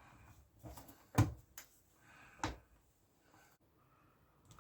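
A few sharp clicks and knocks from hardware being handled as a metal hasp is fitted to a caravan door. The loudest comes about a second in, and a last one comes about halfway through.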